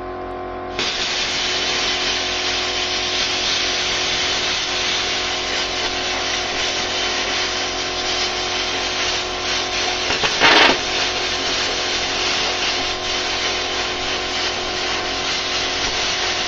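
Air plasma cutter cutting through a steel circular saw blade: a steady hiss that starts about a second in, with a brief louder burst around ten seconds in. Underneath runs the steady hum of a noisy generator.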